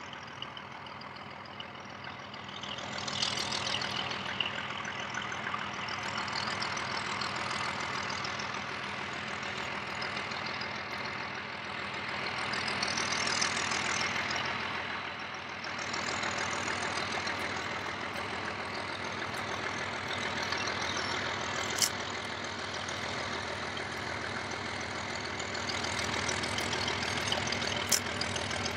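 White Pass & Yukon narrow-gauge diesel locomotive's engine running steadily as it pulls a short train past, swelling a little about halfway. Two sharp clicks come in the last third.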